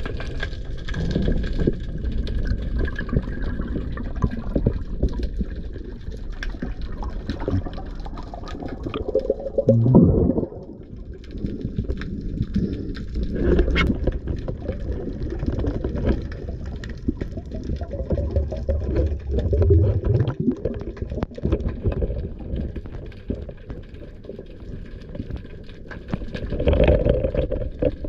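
Muffled water sloshing and gurgling, heard through a camera underwater, with scattered small clicks and knocks. The sound swells and fades unevenly, with louder surges about ten seconds in and near the end.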